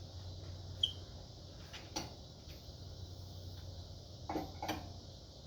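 A few sparse light metal clicks and knocks from a socket wrench working loose the wheel's lug nuts, including a short high ping about a second in and two knocks close together near the end, over a low steady hum.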